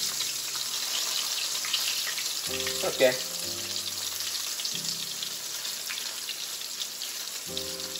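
Battered razor clam pieces pan-frying in shallow hot oil in a cast-iron skillet: a steady sizzle full of small crackles.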